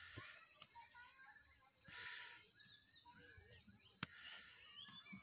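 Near silence: faint rural background with distant birds chirping, and one light knock about four seconds in.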